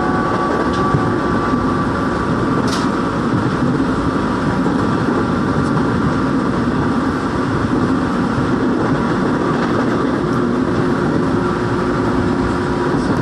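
Korail 1000 series 'new rheostat' electric multiple unit running at speed, heard from inside the passenger car. There is a steady rumble of the wheels on the rails with a steady hum, and a few faint clicks.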